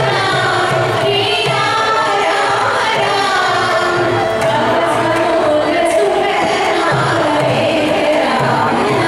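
A group of violins playing Carnatic music together, the melody sliding and bending in unison over soft low pulses.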